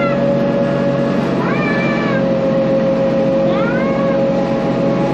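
Tractor engine running steadily, heard from inside the enclosed cab. Three short high cries that rise and then fall come about two seconds apart.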